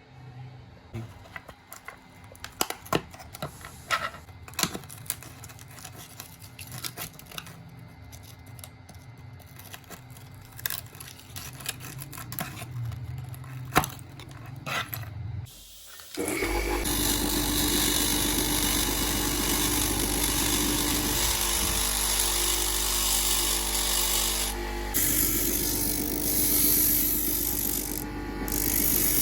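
Scattered light clicks and knocks of small parts being handled, then about halfway through a power tool starts and runs steadily, loud and even.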